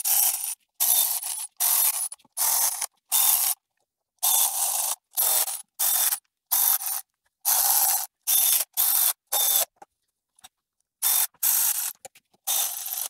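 Hand ratchet spinning valve cover bolts in: repeated bursts of fast pawl clicking, each about half a second long, with short pauses between strokes and a longer break about ten seconds in.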